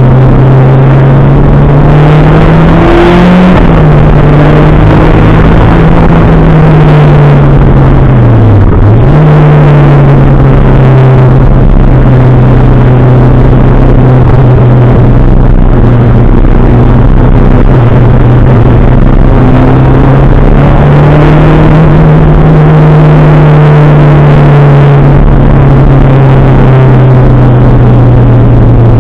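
Toyota Celica GT-Four ST185's turbocharged 3S-GTE four-cylinder engine running hard under load, heard loud from inside the stripped, caged cabin. Its note climbs, then falls away with a sharp brief dip about a third of the way through before picking up again and holding fairly steady, with a slight rise past the middle.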